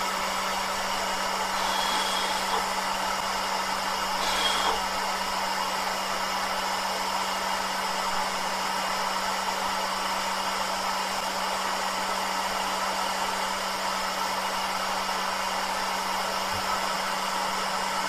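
Electric hot-air blower running steadily, a constant rush of air over an even motor hum, used to heat and soften a refrigerator's rubber door gasket so it straightens out.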